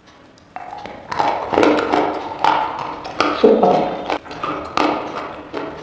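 A person biting and crunching hard, brittle pieces close to the microphone. Sharp, irregular snaps come about two or three a second from about half a second in, many with a short ringing tone after them.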